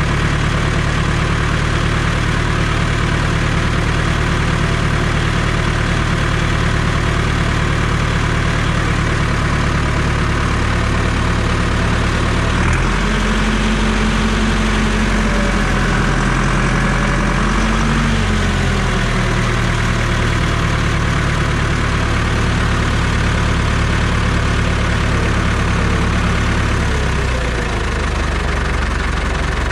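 Fendt Farmer 108 tractor's diesel engine running steadily while its front hydraulic lift is loaded against a crane scale. About 13 seconds in, the engine note changes and a higher whine rises and falls for several seconds as the load comes off the lift. The note shifts once more near the end.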